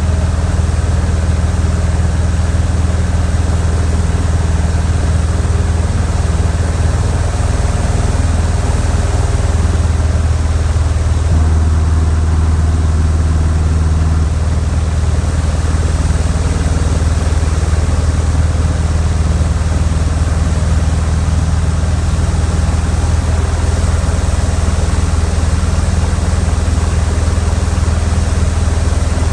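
Funk light airplane's piston engine and propeller droning steadily. The engine note shifts about eleven seconds in and settles back about three seconds later.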